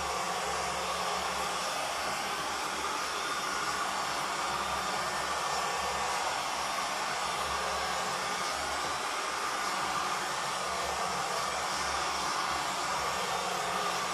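Heat gun running steadily, blowing hot air over a wet acrylic pour to help the cells open: an even whoosh of air with a low motor hum beneath it.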